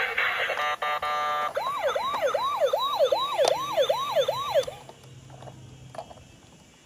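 Toy ambulance's electronic siren sounding from its small built-in speaker: after a short beeping tone, a fast rising-and-falling wail repeats about eight times, then cuts off about four and a half seconds in.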